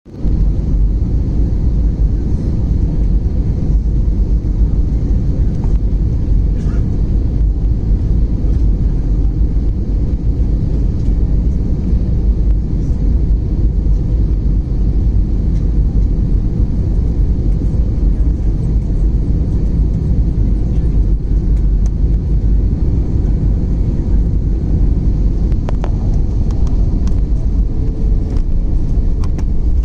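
Steady low rumble of jet engines and rushing air heard inside the cabin of an Airbus A320-family airliner on final approach, descending onto the runway.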